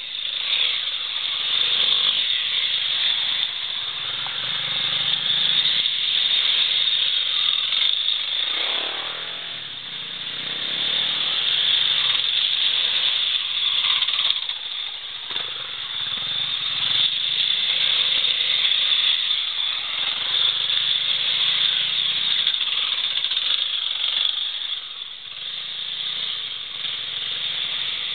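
Small single-cylinder trail motorcycle engines running under load as the bikes climb a rough dirt track one after another, the engine noise swelling and easing as each rider passes.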